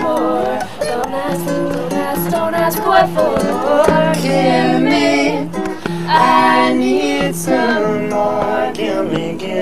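A woman singing a melody over a plucked acoustic string instrument.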